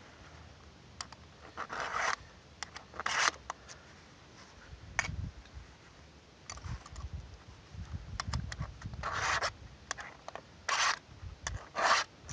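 Flat file rasping across a chainsaw chain's depth-gauge rakers through a raker gauge, in about half a dozen short separate strokes with light clicks between them: the rakers are only being touched up to an even height.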